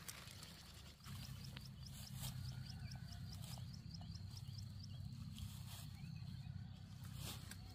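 Faint outdoor ambience: a steady low rumble under a thin, steady high tone, with a run of quick high chirps, about five a second, for a few seconds, and a few faint clicks.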